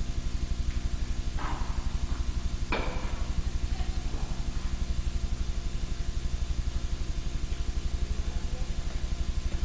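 Two sharp tennis-ball impacts with a short echo, a little over a second in and again about a second later, over a steady low hum with a fast, even pulse.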